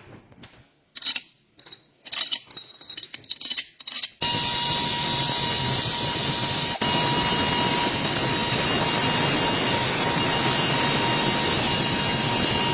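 Scattered light clinks and taps of hand tools on engine parts, then about four seconds in a loud, steady workshop machine noise with a constant high whine starts suddenly and runs on without change.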